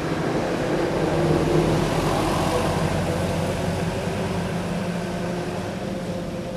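A motor vehicle engine humming steadily, growing louder over the first second or so and then slowly fading.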